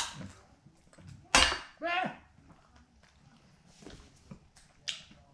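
Oyster shells clacking sharply against a plate as they are handled, the loudest clack about a second and a half in, followed by a short hum and a quick slurp as an oyster is eaten from its half shell near the end.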